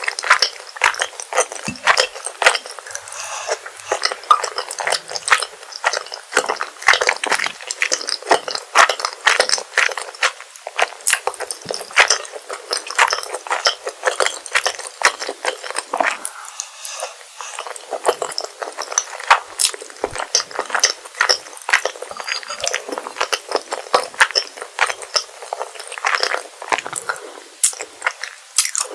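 Close-miked eating of rosé tteokbokki, chewy rice cakes in a creamy sauce: a dense run of small wet mouth clicks and smacks from chewing, with occasional utensil clinks against the dish.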